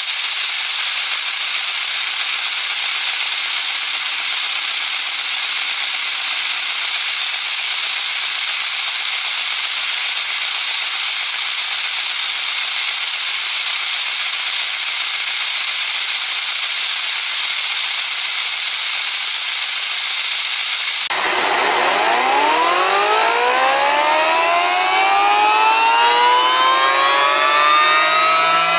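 Compressed air hissing loudly and steadily through a homemade Tesla turbine as it spins a two-blade propeller at about 7200 rpm. About 21 seconds in the sound changes abruptly to a whine rising in pitch in several tones at once as a Tesla turbine spins up on air.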